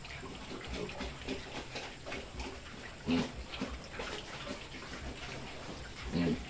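Newly weaned piglets feeding at a trough: a steady mass of small wet munching and slurping clicks, with a short grunt about three seconds in and another near the end.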